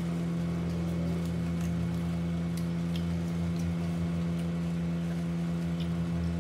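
A steady low mechanical hum with an even, unchanging pitch, with a few faint soft clicks scattered through it.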